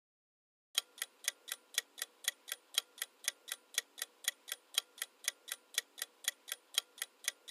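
Clock tick-tock sound effect marking the quiz's countdown timer: even ticks about four a second, alternating louder and softer, starting about a second in.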